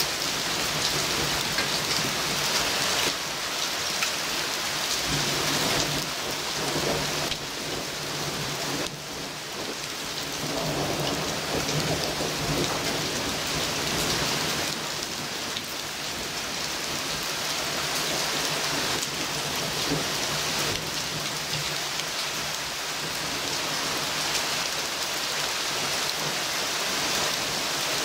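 Heavy rain pouring down steadily in a thunderstorm, an even hiss of downpour.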